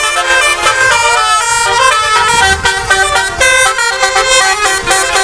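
Indonesian tour bus 'telolet' multi-tone horn playing a quick tune, several notes sounding together and changing a few times a second.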